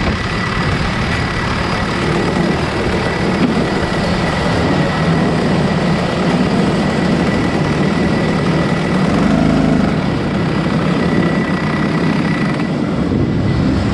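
Rotax Max Evo 125cc single-cylinder two-stroke kart engine running steadily at low revs, heard onboard the kart, with a slight swell about nine seconds in.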